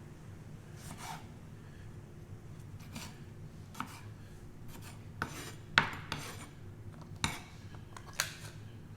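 Kitchen knife cutting grape tomatoes into small pieces on a cutting board: irregular knocks and scrapes of the blade against the board, about six of them, the loudest about six seconds in.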